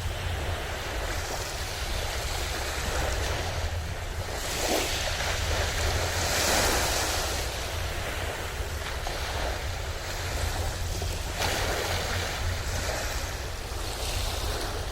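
Sea waves breaking and washing up on the shore, the surf swelling louder about five to seven seconds in and again near the end, over a steady low wind rumble on the microphone.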